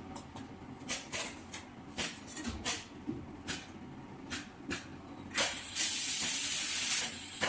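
Automatic laser welding machine for diamond core drill bits firing its welds: a string of about ten short, sharp snaps at uneven intervals, then a steady hiss lasting about a second and a half near the end.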